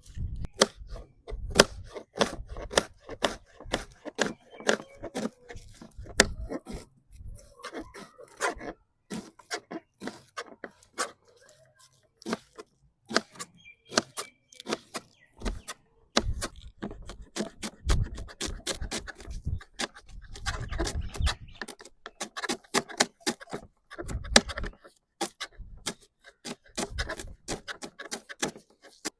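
Knife chopping onion on a cutting board: a long, irregular series of sharp taps, several a second, with brief pauses.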